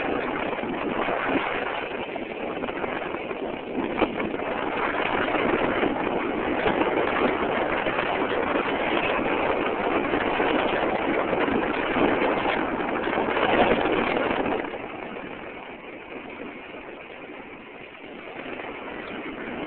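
Steady rushing noise of a bicycle ride picked up by a mobile phone's microphone, easing off about fifteen seconds in.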